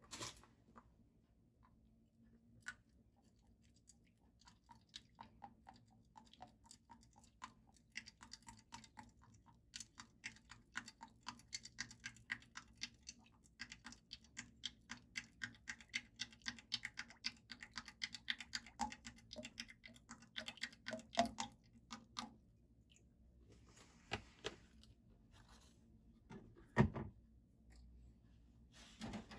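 Food preparation on a kitchen counter: many small crunching clicks, getting busier through the middle and thinning out towards the end, with one louder knock near the end.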